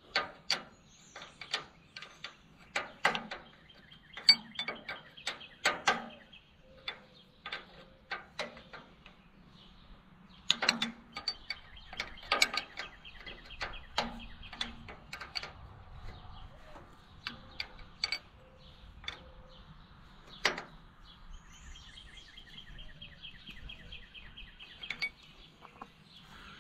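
Ratchet wrench clicking in several short runs of a couple of seconds each, mixed with scattered metallic clinks and knocks of hand tools on bolts.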